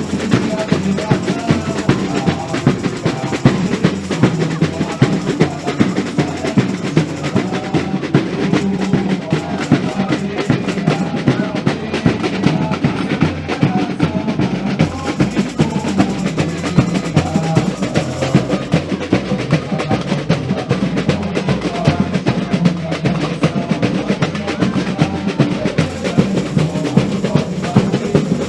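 Samba bateria playing a fast, steady samba rhythm: bass drums under a constant rattle of snare drums.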